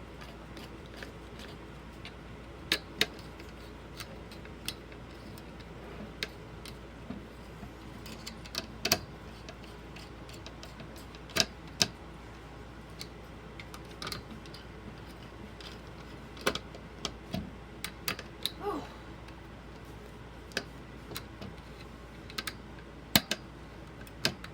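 Scattered sharp clicks and taps, some in quick pairs, from hand work on a desktop PC's CPU cooler: screws and a screwdriver knocking against the metal heatsink as it is tightened down.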